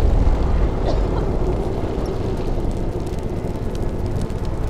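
Steady low rumble lingering after an explosion.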